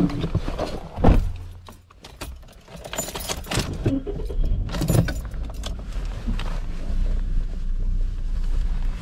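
Keys jangling and clicking at a Subaru's ignition, after a single thump about a second in. Then the engine starts about five seconds in and settles into a steady low idle hum.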